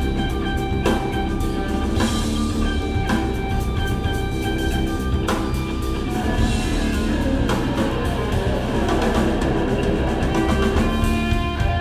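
A live instrumental rock trio playing: electric guitar holding notes over bass guitar and a drum kit.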